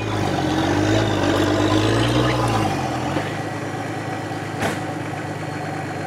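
Off-road 4x4's engine working under load against a tree stump, its pitch rising and falling, then easing back to a steady idle about three seconds in. A single sharp knock near the end.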